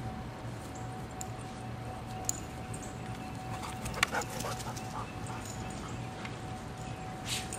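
A dog making a quick run of short, high-pitched calls about four seconds in, over a steady background hum.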